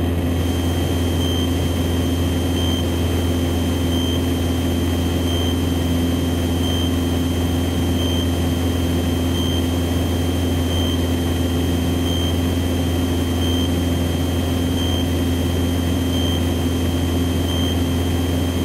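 Cessna 162 Skycatcher's Continental O-200 four-cylinder engine and propeller droning steadily in level cruise, heard from inside the cockpit. A faint high whine swells briefly about every second and a half.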